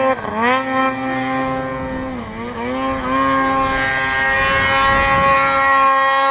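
Snowmobile engine revving hard as the sled ploughs through deep powder, its pitch dipping and climbing back about half a second in and again near two seconds in, then held at steady high revs.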